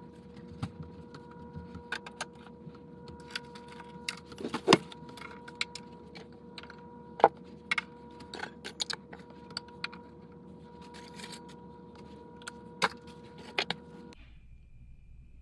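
Small household items being handled and set down on a stand top: scattered clicks, knocks and clinks, with two sharper knocks about a third of the way in and about halfway. A faint steady hum runs underneath and stops abruptly near the end.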